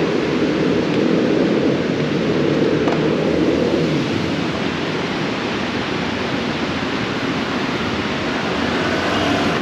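Steady rushing wind noise on a body-worn action camera's microphone, with no distinct events in it.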